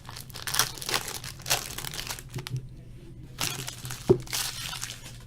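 Crinkling and tearing of a trading-card pack wrapper as it is torn open and handled, in a series of short rustles with a sharp snap about four seconds in.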